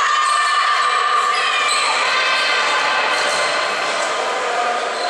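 Sound of a girls' volleyball rally in an echoing sports hall: shouted voices, some held and overlapping, with ball and shoe sounds on the wooden floor.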